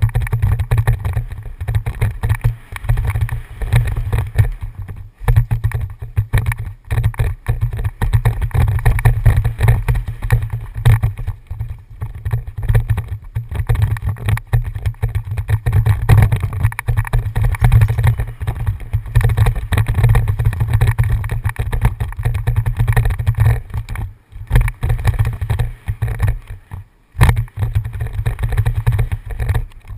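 Wind buffeting a helmet-mounted camera's microphone during a fast downhill mountain-bike descent on a dirt trail, a loud deep rumble with many short knocks and rattles as the bike runs over bumps. The rumble briefly drops out twice near the end.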